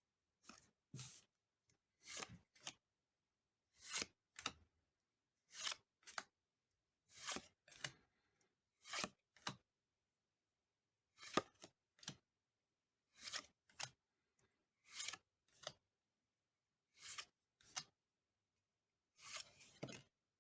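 Trading cards sliding against one another as they are flipped one at a time through a stack: a short paper swish, usually in pairs, about every second and a half to two seconds.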